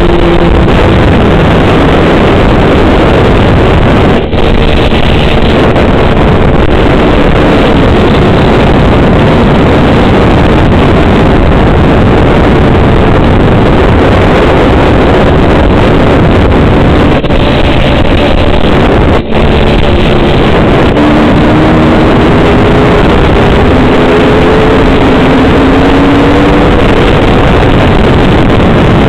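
Dirt bike engine running at road speed, heard under heavy wind roar on a point-of-view camera's microphone. The engine note climbs in pitch several times in the second half as the bike accelerates.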